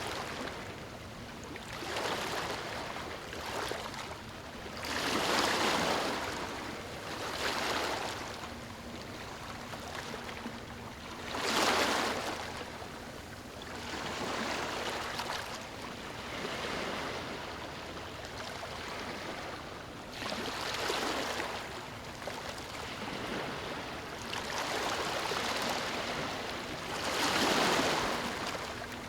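Gentle waves lapping on a beach: a soft wash of surf that swells and falls away every few seconds, some surges stronger than others.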